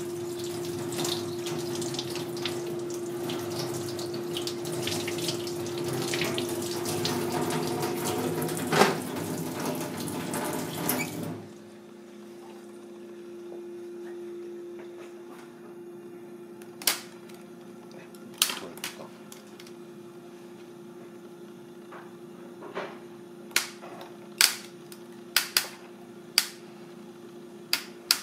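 Kitchen tap water running and splashing over a cooked mud crab in a steel sink, cut off abruptly about a third of the way in. After that a steady low hum remains, with a dozen or so sharp clicks and taps of a knife on a metal tray as the crab's plastic strapping is cut.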